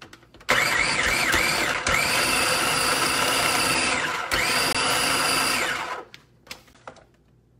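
Countertop food processor pulsed three times, its motor whining as the blade cuts butter into flour for pie crust. The runs last roughly one to two and a half seconds each, with brief breaks between them, and stop about six seconds in.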